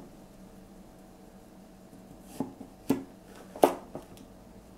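Chinese cleaver slicing a courgette lengthwise, its blade knocking on a wooden cutting board: three sharp knocks in about a second and a half, starting about halfway through, the last the loudest.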